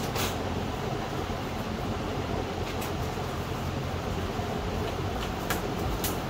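Steady low mechanical hum throughout, with a few light clicks and taps as the loose windshield glass is lifted out of the car's frame.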